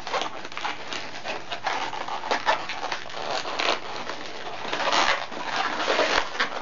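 Inflated latex modelling balloons squeaking and rubbing against each other as hands twist a small bubble and work it into the balloon sculpture; irregular squeaks and rubs, busiest about five seconds in.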